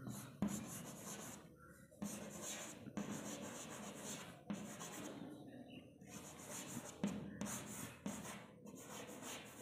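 Chalk writing on a chalkboard: faint scratchy strokes in short runs, with brief pauses between them.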